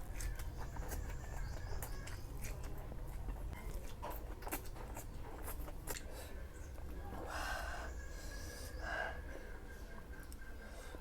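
A person eating close to the microphone: scattered chewing and mouth clicks, with two short breathy noises about seven and nine seconds in, over a low steady hum.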